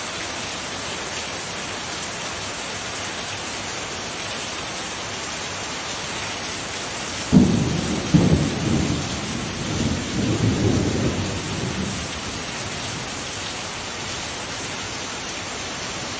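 Heavy rain pouring onto paving, a steady hiss. About seven seconds in a thunderclap breaks with a sudden low rumble that rolls on for about four seconds before fading back under the rain.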